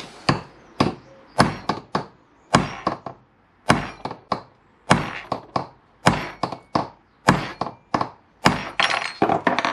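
Hammer striking a steel punch again and again, sharp ringing metal-on-metal blows in uneven runs of two to four. The punch is peening over the end of a motorcycle footpeg pivot pin, flaring it out to retain its washer.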